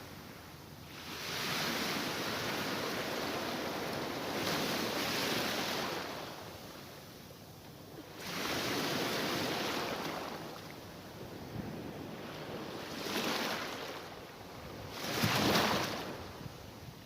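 Mediterranean Sea waves washing in and drawing back in repeated surges of surf, the loudest one near the end.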